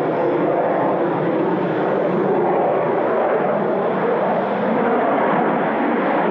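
Twin jet engines of a Sukhoi Su-30MK fighter heard in flight: a steady, even rush of engine noise with no marked change in pitch or loudness.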